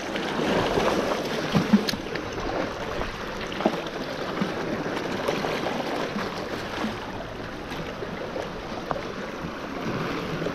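Small sea waves washing and lapping against the rocks of a breakwater, a steady rushing with scattered light splashes and clicks.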